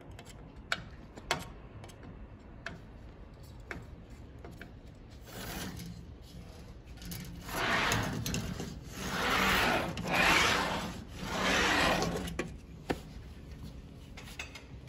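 Sliding patio screen door rolled back and forth along its track on its screen rollers: a rubbing roll in four swells, after a few light clicks at the start. The door is being tried out on freshly adjusted rollers.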